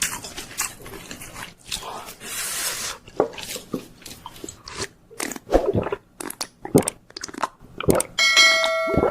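Close-miked eating sounds: wet chewing, lip smacks and mouth clicks, with a short hissing slurp about two seconds in. Near the end a clear ringing tone with several pitches starts and holds.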